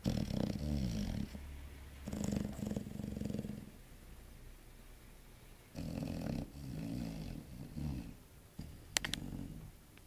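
Six-month-old chocolate Labrador puppy snoring in its sleep: several rough, low snoring breaths with a pause in the middle. Two sharp clicks about nine seconds in.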